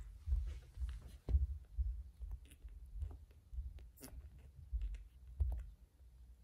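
Newborn kittens suckling at their mother cat, with soft wet clicks and smacking. Under it run irregular low muffled thumps, about two a second, that ease off near the end.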